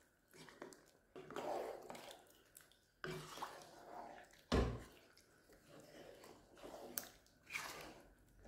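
Wooden spoon stirring a thin, watery curry of trotters and beans in a non-stick pan: faint wet sloshing and squelching in uneven strokes, with one sharper knock about halfway through.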